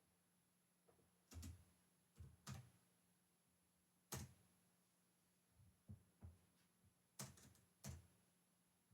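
Computer keyboard, quiet scattered keystrokes: single taps and a short cluster of a few near the end, with pauses between them.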